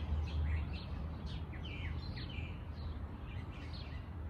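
Small songbirds chirping with many quick, short calls, mostly sliding downward in pitch, over a steady low rumble.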